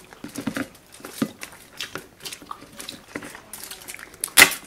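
Eating sounds of a seafood boil, chewing and smacking, with short crackles of shells being handled. One loud crackle comes near the end.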